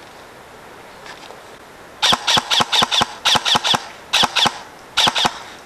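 Airsoft electric rifle (AEG) firing about fifteen quick single shots in three short strings, starting about two seconds in, each a sharp crack with a brief ring.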